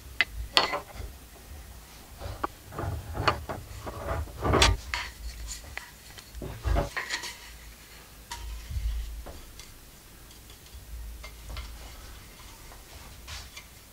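Wooden buck saw frame and metal saw blade being handled and fitted together on a wooden tabletop: scattered clicks, knocks and light rattles, busiest in the first half.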